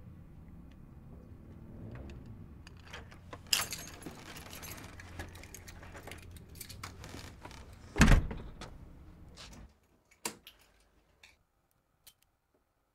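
Clicks and rustling over a low steady hum, with one loud thump about eight seconds in. The hum then cuts off suddenly, leaving a few scattered clicks.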